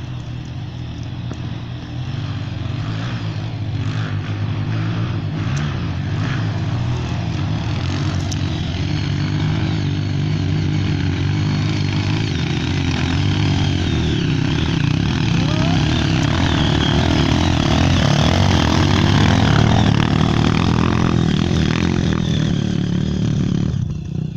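Single-cylinder four-stroke trail motorcycle engine pulling under load up a hill climb, running steadily and growing gradually louder before easing off near the end.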